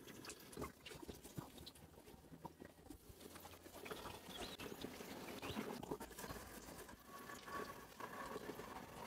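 Faint sloshing and dripping of water as a slaughtered chicken is dunked in a pot of scalding water and lifted out, scalding to loosen the feathers for hand plucking. The small patters grow busier about four seconds in.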